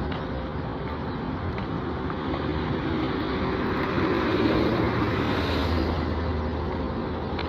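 Road traffic noise: a steady rumble of passing vehicles, with one vehicle going by and getting louder about four to six seconds in.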